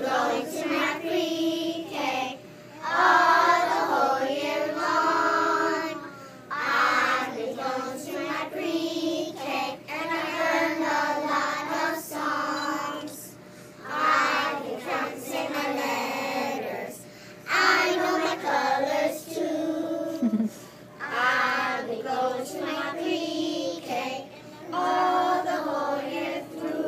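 A group of young children singing together, in short phrases with brief pauses between them.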